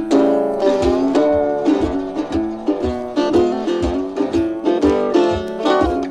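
Background music: a quick picked plucked-string tune over a steady low beat, about two beats a second.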